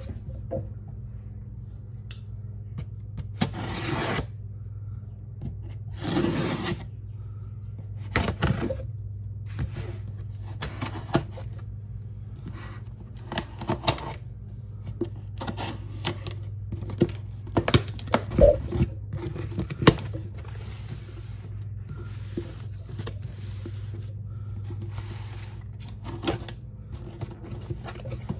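A knife slicing along the packing-tape seams of cardboard boxes: a series of short scraping and rustling cuts with pauses between them, the busiest stretch a little past the middle. A steady low hum runs underneath.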